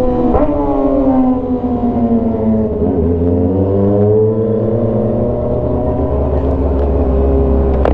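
Kawasaki ZX-25R's 249 cc inline-four through a straight-piped GP-style exhaust, the engine note falling steadily in pitch for about three seconds as the bike slows. It then rises briefly and settles into a steady, lower note at low speed.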